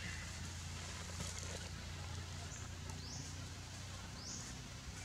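Outdoor ambience: a steady low rumble under a faint hiss, with two short, rising, high-pitched bird chirps about three and four seconds in.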